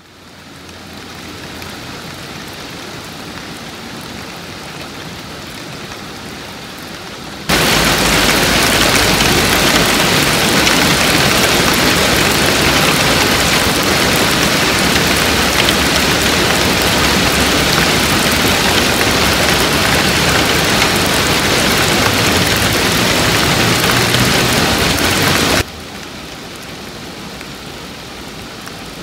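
Steady rain falling, fading in at the start. About seven seconds in it switches abruptly to a much louder, heavier downpour, which cuts back to the lighter rain a few seconds before the end.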